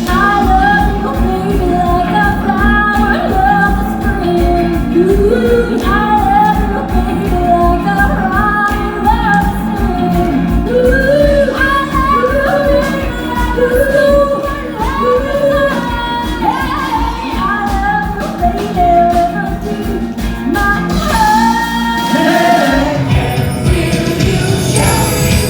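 A woman singing a pop-rock song live on stage with full band accompaniment. About twenty-two seconds in the bass drops out briefly and the music opens up with a bright shimmer before the band comes back in.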